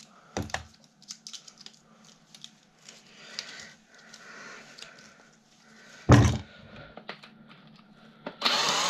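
Desk fan parts being handled and taken apart: scattered small plastic and metal clicks, a knock about half a second in, and a loud thud a little after six seconds. A short, louder rasping noise comes near the end.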